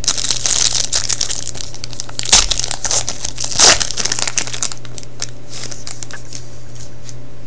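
Foil wrapper of a hockey card pack being torn open and crinkled by hand, with two louder rips about two and a half and three and a half seconds in. The crinkling thins to a few light rustles after about five seconds.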